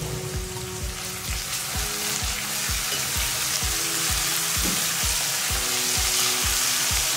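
Ginger-garlic paste frying with sliced onions in hot oil in a nonstick kadhai, a dense steady sizzle that builds a little louder, with a silicone spatula stirring through it.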